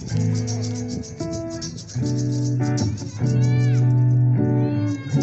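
Music: guitar with a shaker keeping a fast, even beat under long held notes that change about once a second.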